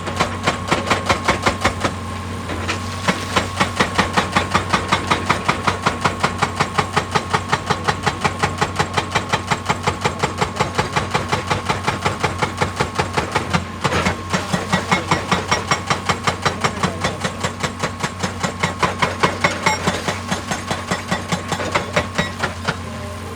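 Excavator-mounted hydraulic breaker hammering rock in a steady run of blows, about four or five a second, over the excavator's diesel engine running steadily. The hammering breaks off briefly about two-thirds of the way through, then resumes.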